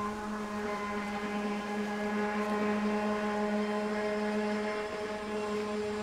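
A motor running at a constant speed: a steady, unchanging pitched hum.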